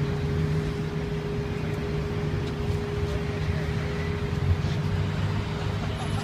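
Steady low mechanical rumble with a constant hum running through it, unchanging throughout.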